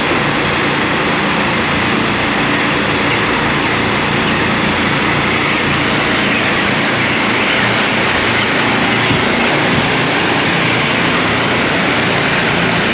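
Steady mechanical running noise with a low hum underneath, unchanging throughout.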